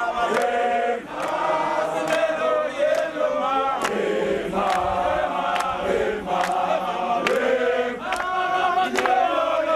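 Large crowd singing together in harmony, mostly men's voices, a chanted song held steadily on long notes.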